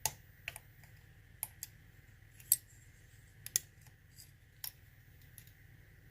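Irregular sharp, light clicks and taps of lock picks working inside a challenge lock, about a dozen over six seconds, the loudest about two and a half seconds in.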